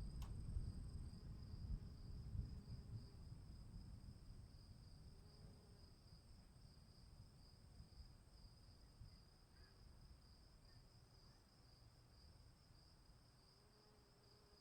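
Crickets trilling steadily at a high pitch, with a soft pulsing to the trill. A faint low rumble underneath fades away over the first several seconds.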